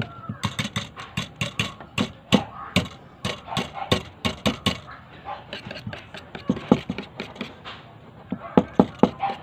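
A wire whisk clicking and scraping against a stainless steel bowl while whisking cream cheese and cream, a quick uneven run of clicks that thins out for a moment in the middle.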